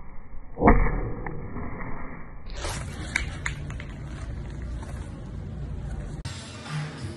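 A single sharp thwack less than a second in, as a kick strikes the screw cap of a large plastic bottle and spins it off. A few lighter clicks and rustles follow.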